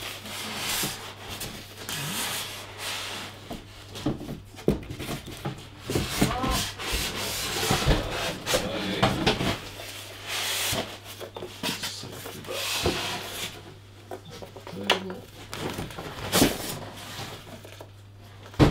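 Polystyrene foam packaging rubbing, scraping and squeaking under the hands, with plastic wrapping rustling and small knocks, as a boxed monitor is unpacked. The handling sounds come in irregular bursts with short pauses.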